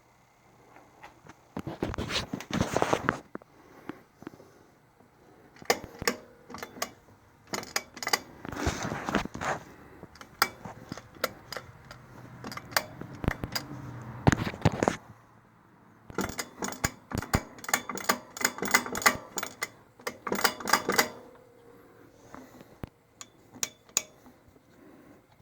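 Kawasaki Brute Force ATV clunking: repeated metallic knocks and rattles in clusters of rapid strikes lasting one to five seconds, with quieter pauses between them.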